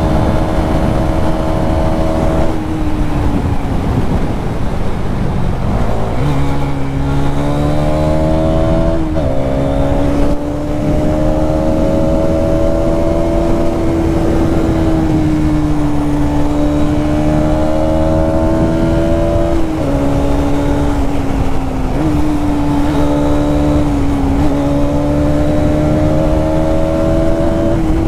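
Hero Xtreme 250R's 250 cc single-cylinder engine under way through the gears: the exhaust note climbs slowly and drops sharply at each gear change, several times. A steady rushing noise runs underneath.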